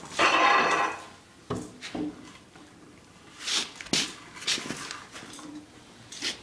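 A short scrape of wood on wood, then a series of scattered wooden knocks and clunks as heavy timbers and spacer boards are shifted.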